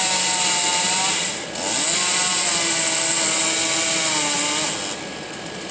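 Chainsaw running at full revs, cutting into a corkscrew willow trunk. The revs dip briefly a little over a second in, climb again, then fall back to idle near the end.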